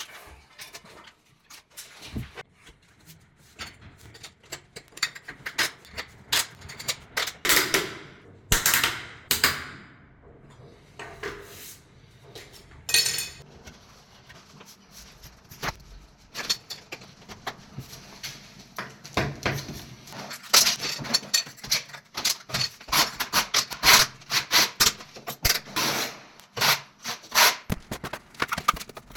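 Plastic tile-leveling clips clicking and knocking as they are handled and slipped under the edges of large porcelain floor tiles, with scattered taps and a few longer scraping sounds about a third of the way in.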